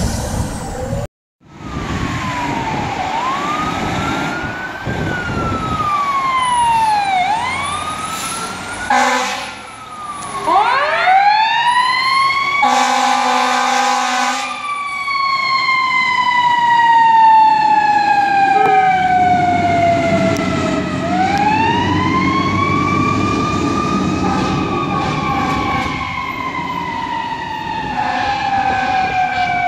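Fire truck sirens wailing, rising and falling in pitch over a truck engine. There are horn blasts about nine and thirteen seconds in, and in the second half a long, slow wail winds up and falls away. The sound cuts out briefly about a second in.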